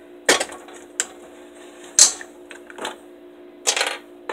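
A few sharp clicks and knocks from kitchen items being handled on a counter, spaced irregularly, with a slightly longer rustling burst near the end, over a steady low hum.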